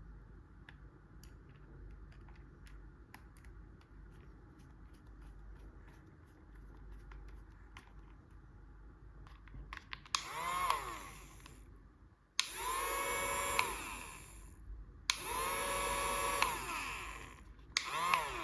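A small electric motor whirring in four bursts of about two seconds each, from about ten seconds in; each burst spins up with a rising whine and winds down at its end. Before that there are only faint light clicks.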